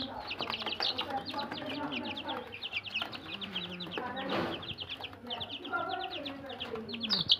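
Young chickens cheeping: a rapid, continuous run of short high peeps, with a few lower calls now and then.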